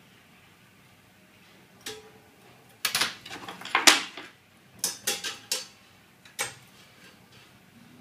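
Metal clinks and clatter of a steel rule being laid on and moved against steel cable tray held in a vise: a handful of sharp knocks and scrapes spread over a few seconds, the loudest about four seconds in.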